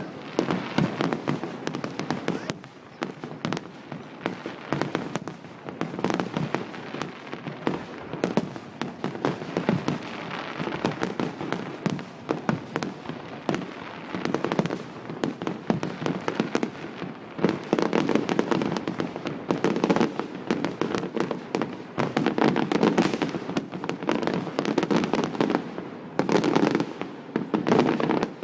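Large fireworks display: a dense, unbroken barrage of aerial shell bangs, heavier and louder in the second half.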